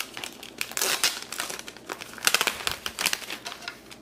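Clear plastic protective wrap being peeled off an Amazon Echo's cylinder, crinkling with a quick, irregular run of crackles.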